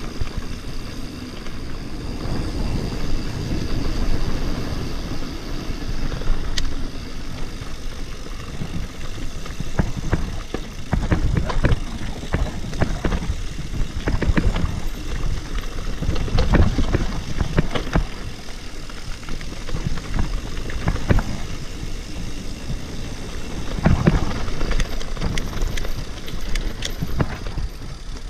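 Mountain bike riding fast down a rough dirt forest trail: steady rush of wind on the microphone and tyre noise, with frequent knocks and rattles of the bike over bumps and roots from about ten seconds in.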